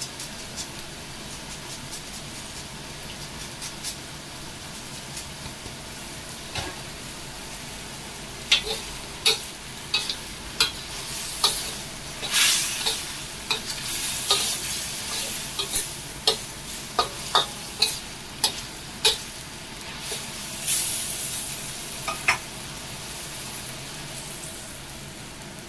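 Spaghetti with tuna sizzling gently in a stainless steel wok. From about eight seconds in, a metal spatula stirs and tosses it, with a run of sharp clinks and scrapes against the wok that ease off again a few seconds before the end.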